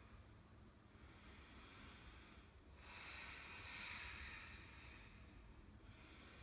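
Faint Ujjayi breathing, slow breaths drawn through a narrowed throat with an oceanic sound: one breath starting about a second in, then a longer one after a short pause.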